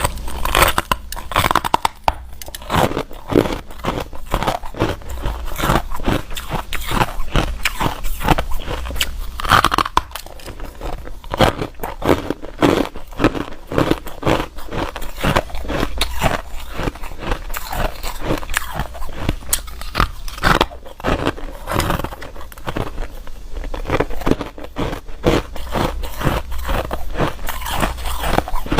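A person biting and chewing hard ice close to the microphone: dense, irregular crunching with no pause.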